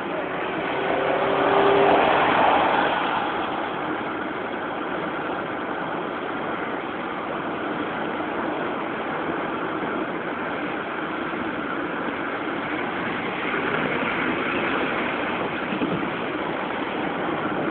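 Steady rush of tyre and wind noise from a car travelling at freeway speed, swelling louder for a moment about two seconds in.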